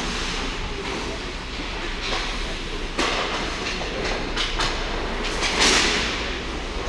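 Ice hockey play on a rink: skate blades scraping and gliding on the ice over a steady rumble. A sharp crack comes about three seconds in, a few quick clacks follow, and a louder hissing skate scrape near six seconds is the loudest moment.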